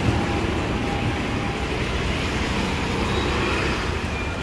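Modern electric AntRay tram passing close by: a steady rumble of wheels and running gear, easing off slightly near the end.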